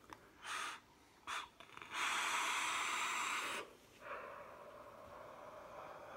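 A person vaping on a box-mod e-cigarette: a couple of short puffs, then a long drag of about a second and a half through the atomizer, followed by a long, softer exhale of a thick cloud of vapour.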